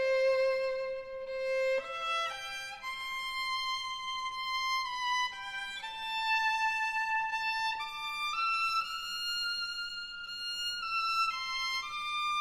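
Background music: a slow melody of long held notes, each changing pitch every second or two.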